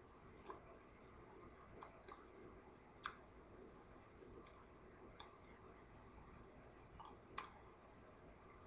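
Near silence: room tone broken by about eight faint, irregular clicks, the two sharpest about three seconds in and near the end.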